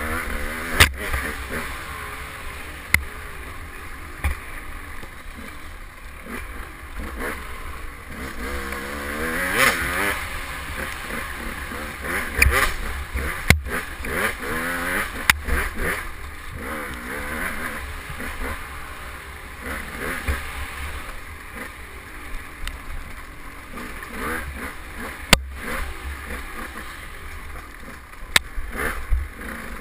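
KTM 200 XC two-stroke dirt bike engine revving up and down with the throttle, its pitch rising and falling in quick sweeps while riding a tight trail. Several sharp knocks cut through as the bike hits bumps.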